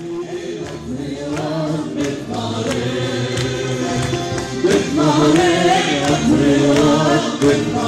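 Music with singing voices over a steady beat of sharp strikes, about one every two-thirds of a second. It fades in at the start and grows louder over the first few seconds.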